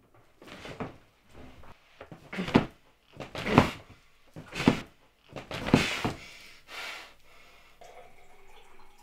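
A gagged man struggling, heard as about seven short, muffled bursts of effort roughly one a second, loudest in the middle of the run. They stop about seven seconds in.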